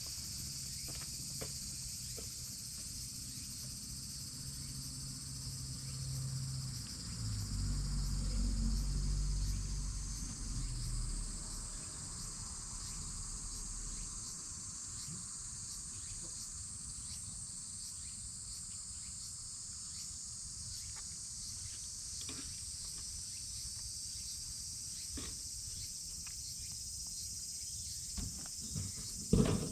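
Steady, high-pitched chorus of insects chirring. A low rumble rises from about six seconds in and fades by about twelve seconds, and a sharp knock comes just before the end.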